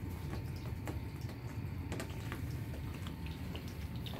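A Turkish Van cat grooming: small, wet licking clicks, scattered and irregular, over a steady low hum.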